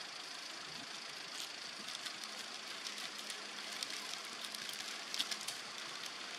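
Steady outdoor background hiss with a faint low hum, broken by a few short sharp clicks about five seconds in.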